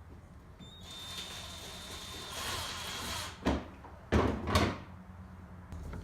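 Knocks and scraping from a plastic wheelie bin lid and latch being handled: a sharp knock about three and a half seconds in, then a louder cluster of knocks about a second later.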